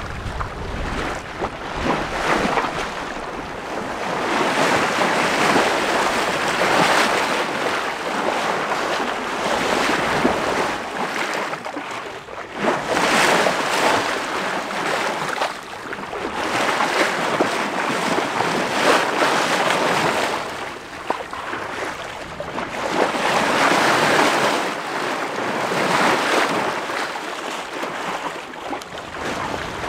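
Sea water rushing and splashing along a sailboat's hull as it moves under sail, swelling and easing every few seconds, with wind buffeting the microphone.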